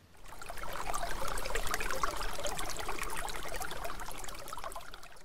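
Running water trickling and babbling, fading in over about the first second and dying away near the end.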